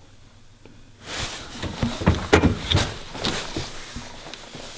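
A moment of quiet, then from about a second in a run of irregular knocks, clatter and shuffling footsteps as people move about and handle things.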